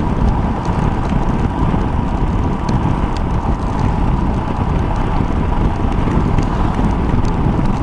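Steady rush of wind buffeting a helmet microphone on a moving motorcycle, with the bike's engine running evenly underneath.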